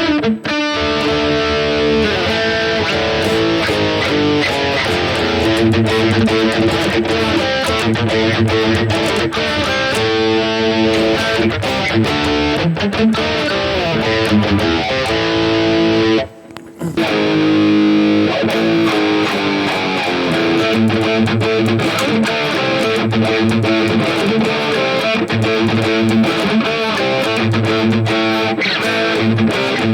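Distorted electric guitar played through a digital modelling unit's Marshall-style high-gain amp model, a riff with a short break about halfway through. The tone is fat but not very tight.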